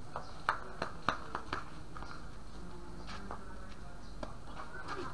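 Tennis ball hits and bounces on a hard court during a rally: a quick run of sharp pops between about half a second and a second and a half in, then another near three seconds.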